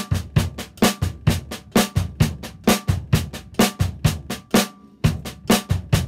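Drum kit played in a 'train time' beat: a steady run of snare drum strokes, about four to five a second, with louder accented strokes and kick drum thumps under them. There is a brief break about five seconds in.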